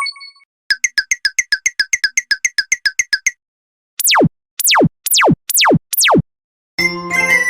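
Synthesized cartoon sound effects: a rapid run of electronic beeps, about six a second, then five quick falling 'pew' sweeps, and a tinkly music phrase starting near the end.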